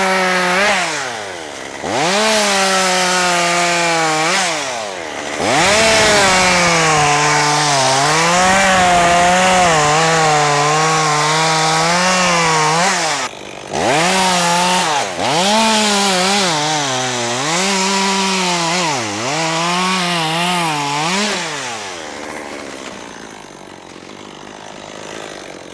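Two-stroke chainsaw cutting wood in several long cuts, its engine pitch dipping as the chain bites and rising again between cuts. It drops back and fades near the end.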